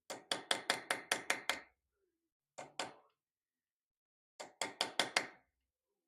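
Small hammer tapping a chasing tool to drive copper inlay into a wrought iron cross-guard. Sharp metallic taps come in quick runs: about eight in a row, then two, then about five more.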